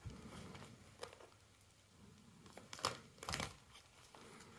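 Plastic binder pages rustling and crinkling as they are handled and turned, with two sharper crinkles close together about three seconds in.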